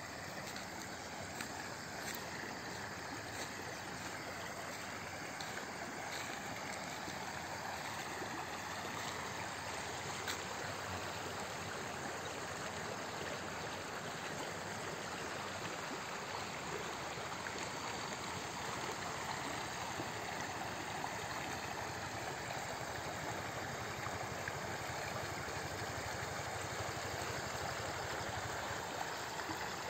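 Shallow stream flowing steadily, an even rush of water.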